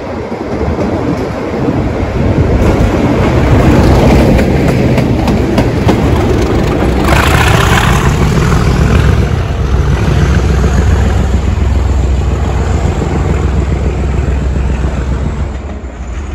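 Class 37 diesel locomotive's English Electric V12 engine working hard as it pulls away, with a deep steady throb and a run of wheel clicks on the rails. A short rush of noise comes about seven seconds in, and the engine fades near the end as the locomotive draws off.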